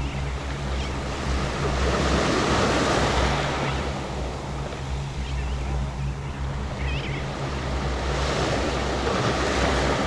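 Small waves breaking and washing up over a sandy, seaweed-covered shoreline, the wash swelling about two seconds in and again near the end.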